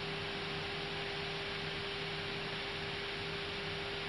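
Steady hiss with a constant hum in an Airbus A320 cockpit's audio feed; the hum is typical of the aircraft's 400 Hz electrical supply.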